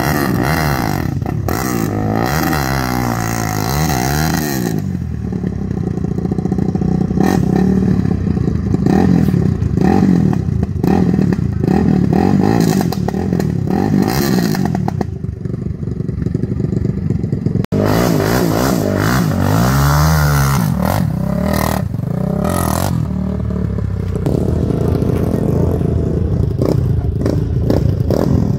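Several quad bike engines revving up and down in quick, repeated surges, with scraping and clatter. In the first part a bogged quad is revved hard as it is pushed up a muddy bank out of a stream.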